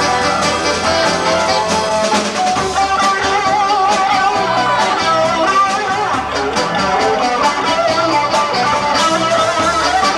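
Live rock band playing, with electric guitars, drum kit and saxophones.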